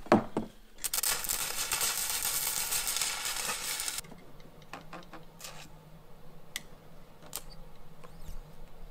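A sharp knock, then a loud, fast rattling noise for about three seconds that cuts off suddenly, followed by a few light clicks and taps over a faint steady hum.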